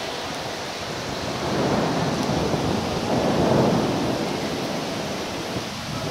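Rainwater pouring in through the ceiling during a heavy rainstorm: a steady rushing noise that swells louder from about one and a half to four seconds in.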